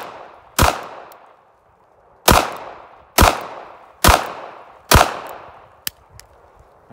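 Five pistol shots from a stock Ruger LCP .380 ACP. After a pause of almost two seconds following the first, they come about one a second, each with a short echoing tail, and a faint click follows near the end.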